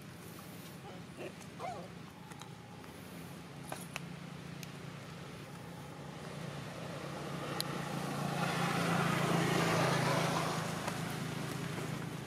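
A road vehicle passing by, its noise swelling to a peak a few seconds before the end and then fading, over a steady low hum.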